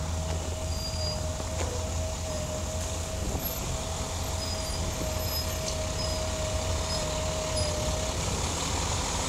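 Street traffic: a steady low engine rumble from motor vehicles, with a steady mid-pitched whine that stops about a second before the end.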